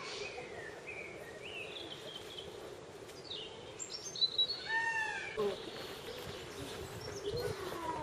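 Wild songbirds chirping and singing, with short whistled notes scattered over a steady background hum. A louder run of quick arching notes comes about halfway through.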